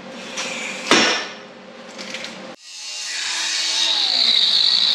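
Steel tubing knocking and clanking as it is handled. After an abrupt break a little over halfway in, an angle grinder cuts into the steel tube, a high-pitched grinding that grows louder and holds.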